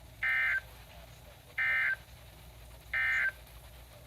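Emergency Alert System end-of-message signal from a weather radio: three short, identical bursts of SAME digital data tone about a second and a half apart. The bursts mark the end of the tornado warning broadcast.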